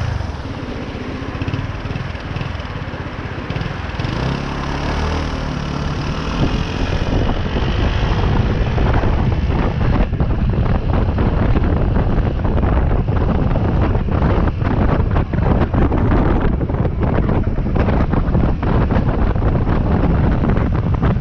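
Motorcycle engine pulling away and picking up speed, with wind buffeting the camera microphone that grows louder and gusty through the second half as the bike gets going.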